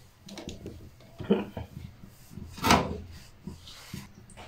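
A few short rubbing and scraping sounds with light knocks as things are handled around a wet stone grinding slab, the loudest about two and a half seconds in.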